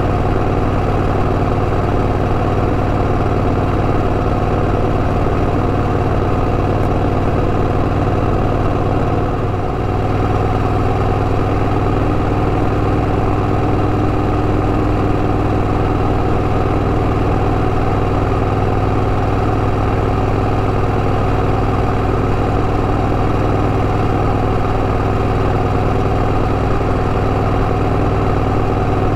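Honda Rebel 1100 DCT's parallel-twin engine running at steady revs. Its note dips briefly with a falling sweep about nine and a half seconds in.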